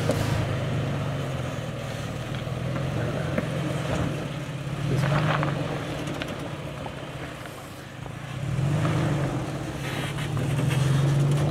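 Toyota Tacoma pickup's engine running at low crawling speed on a rocky trail, its note swelling with throttle about five seconds in, again around nine seconds and near the end.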